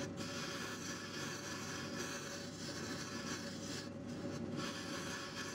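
Small benchtop wood lathe running with a steady hum while sandpaper is held against the spinning wooden handle, giving a continuous hissing rub of sanding. The sanding hiss drops out briefly about four seconds in and then resumes.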